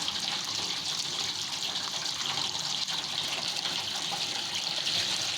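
Water gushing steadily from the outlet of a single-phase electric water pump.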